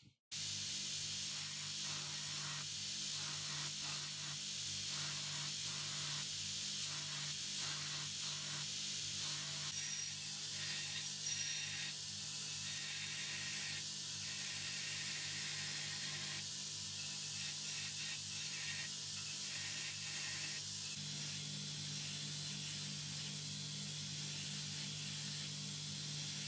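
Belt grinder running with a steady motor hum while a steel hatchet head is ground on its abrasive belt, giving a continuous hiss that waxes and wanes as the head is pressed and moved.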